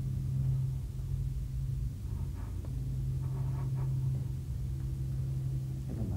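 Steady low background hum, with faint murmured voices in the room from about two seconds in.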